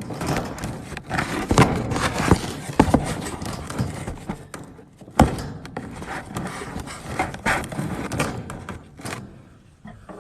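Handling noise close to the microphone: a run of knocks, scrapes and rustling as the recording phone is moved and propped up, with one sharp knock about five seconds in, settling down near the end.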